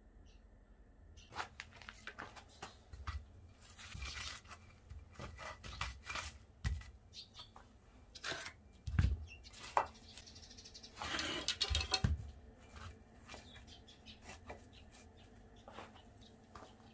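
Bricks being lifted off a stack and set down on wood-chip-covered ground: hard clacks of brick against brick, scraping, and a few dull thumps. The handling is busiest in the middle and thins to scattered light knocks near the end.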